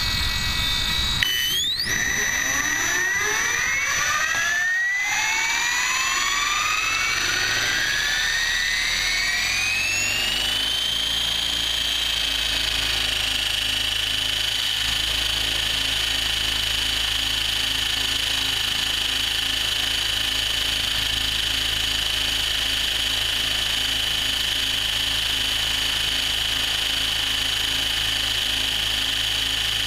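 Align T-Rex 700E electric RC helicopter's brushless motor and drivetrain spooling up. The whine rises steadily in pitch for about ten seconds as the rotor comes up to speed, then holds a steady high whine at flying head speed.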